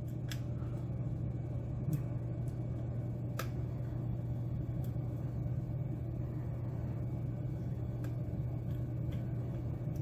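Hook pick working the pins inside an ABUS padlock core under tension: a few faint, sparse clicks, the clearest about three and a half seconds in, over a steady low hum.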